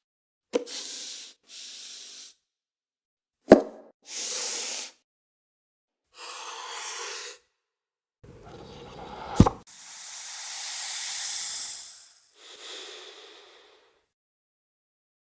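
Sound effects of a gift box being unwrapped and opened: several short rustling and sliding sounds of ribbon and cardboard packaging, separated by silence and punctuated by sharp clicks, the loudest about three and a half seconds in. Near the end a longer whoosh swells and fades.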